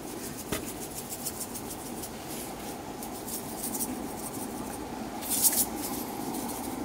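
Salt and pepper shaken from a shaker onto raw steaks: quick, fine rattling ticks of grains, with a louder shake about five seconds in, over a steady low rush.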